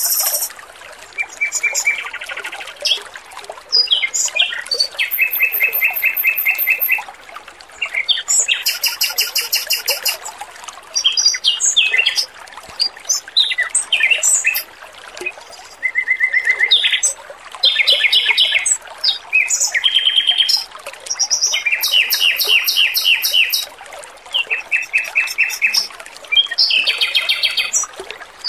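A male red-billed leiothrix (Pekin robin) singing: a long run of quick, high trilled phrases, each a second or two long with short pauses between them. A faint steady trickle of water runs underneath.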